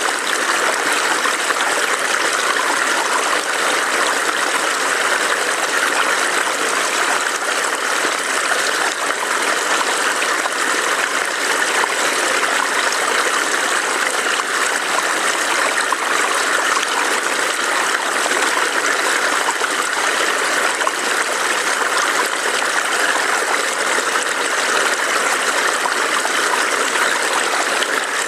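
Small stream burbling steadily over stones: an even, unbroken rush of water with a light trickling texture.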